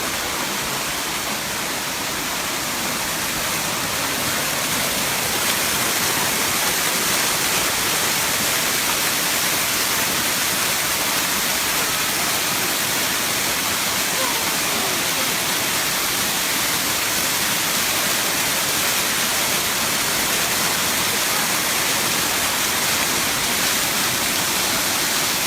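The seventh tier of Erawan Falls, a steady rush of water cascading over the rocks.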